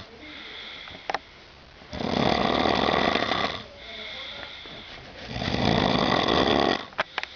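A sleeping person snoring loudly: two long, rasping snores about three seconds apart, with quieter breathing between them.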